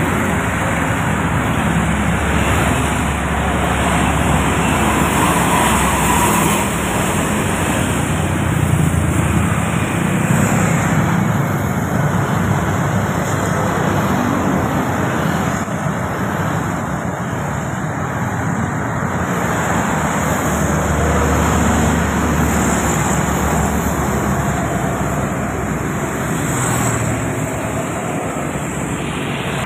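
Steady heavy road traffic passing close by: a continuous stream of motorcycles and cars, their engines and tyre noise blending into one even wash of sound.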